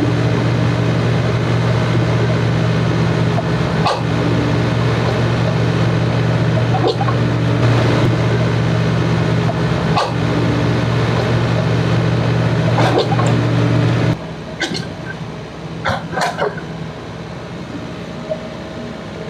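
Heavy diesel engine of an excavator running steadily, with a short knock about every three seconds. About fourteen seconds in the engine sound cuts away abruptly, leaving quieter background and a few short barks from a dog.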